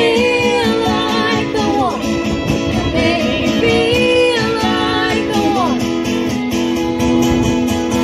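Four-piece band playing live: a singer carries a gliding melody over guitar accompaniment.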